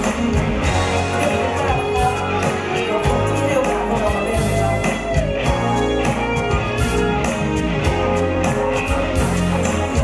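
A live pop-rock band playing a song with a steady beat, electric bass and guitar, and a male lead vocal at the start.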